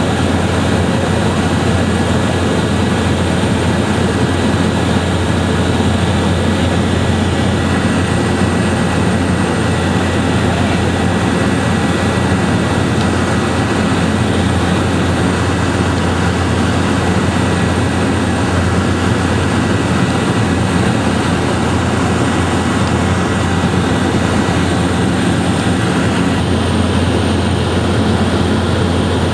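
Steady, loud engine drone with a constant low hum and thin, high steady whines, unchanging throughout.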